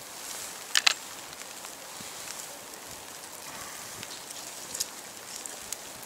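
A knife cutting the peel off an orange, with a quick cluster of sharp clicks about a second in and a fainter click near five seconds, over a steady outdoor hiss.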